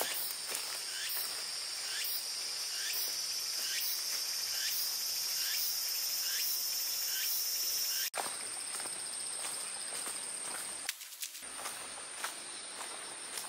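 Insects singing, a steady high-pitched drone. About eight seconds in it changes abruptly to a different, even higher steady buzz.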